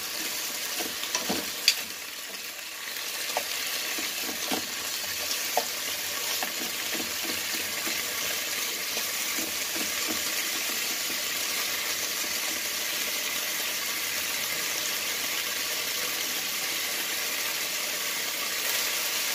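Marinated pork chops sizzling in a nonstick frying pan with no oil added, a steady high hiss. A wooden spatula taps and scrapes the pan a few times in the first six seconds, with one sharp click a little under two seconds in.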